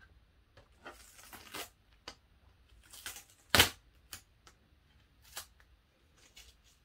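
Blue painter's tape being peeled off the edge of a painted canvas in short ripping pulls, with handling rustle. There is one sharp, loud crack about three and a half seconds in.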